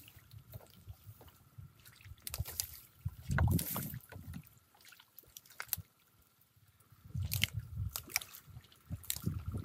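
Shallow water sloshing and splashing as a pole works through a tangle of wet stems and leaves at the bank, with irregular rustling and snapping clicks. It comes in bursts, loudest about three and a half seconds in and again around seven to eight seconds.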